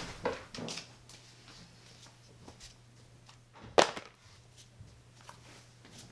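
Light footsteps and handling sounds, with one sharp knock just under four seconds in, over a faint steady low hum.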